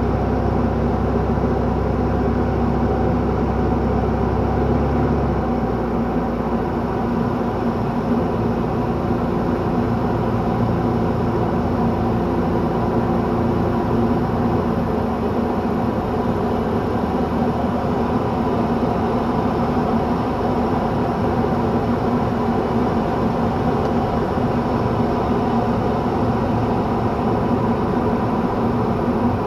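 Esqual VM-1 light sport aircraft's engine and propeller running steadily in flight, heard from inside the cockpit: an even drone with several held tones. The deepest part of the rumble drops away about five seconds in.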